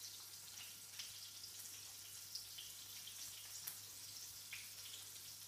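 Flour-coated chicken breast pieces shallow-frying in oil in a pan: a steady sizzling hiss with scattered small crackles.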